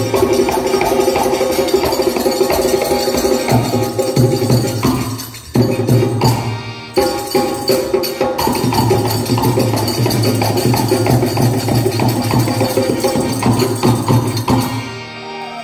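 Instrumental folk-band passage: dholak drums beating a steady rhythm under harmonium, with jingling jhaal cymbals. The playing breaks off briefly twice, about five and a half and seven seconds in, and eases near the end.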